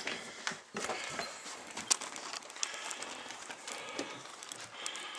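Handling noise of a handheld camera being turned and carried: rustling with scattered small clicks and knocks, one sharper knock about two seconds in.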